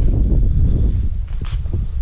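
Wind buffeting the microphone, a loud irregular low rumble, with a brief click about a second and a half in.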